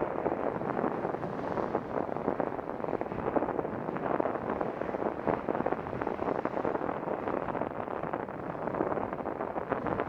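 Wind buffeting the microphone of a bicycle-mounted camera while riding: a steady rush with a fast, constant flutter.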